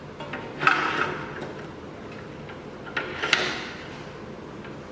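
Metal clicks and clacks from a key clamp being fitted onto a CNC key cutting machine, in two short clusters: one about half a second in, the other about three seconds in.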